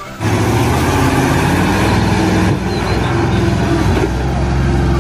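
Heavy water tanker truck's engine running steadily as the truck drives through deep mud, a loud low drone that starts just after the beginning and shifts slightly about halfway through.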